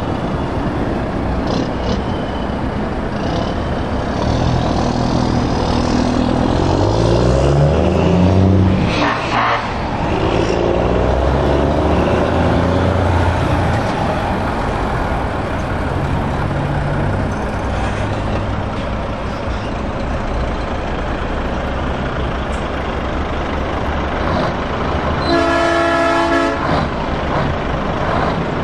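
Heavy diesel trucks, Renault T-Range tractor units among them, driving past one after another, engines pulling away with revs rising through the gears. A short hiss of air comes about nine seconds in, and a truck horn sounds once for about a second near the end.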